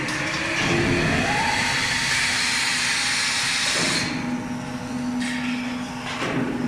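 Foundry machinery noise: a steady hum, with a loud hiss that cuts off suddenly about four seconds in.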